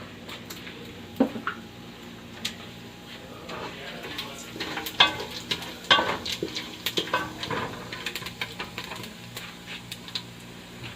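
Spices frying in hot sunflower oil in a pan, a light sizzle, with a spoon knocking and scraping against the pan as it is stirred, the clicks coming thickest in the middle.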